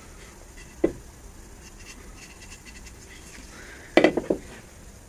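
Wooden hatchet handle knocking against a workbench: a single knock about a second in, then a louder clatter of several quick knocks near the end as the handle is set down.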